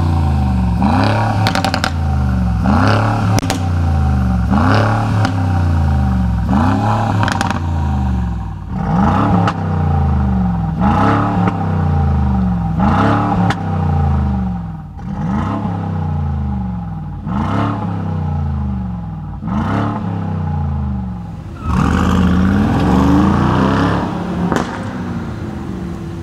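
Mercedes-AMG G63's V8 exhaust, fitted with a custom muffler and Brabus tips, revved again and again. Each sharp rise in revs ends in a crack and then falls away, about every one and a half to two seconds.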